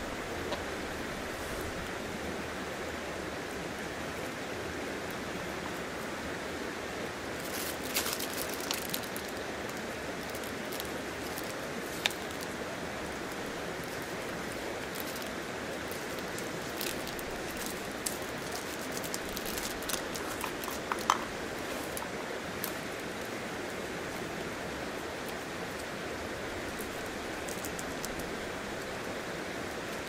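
River water flowing steadily, with scattered sharp clicks and taps of a knife cutting shimeji mushrooms and fish cake on a wooden board, most of them in the middle of the stretch.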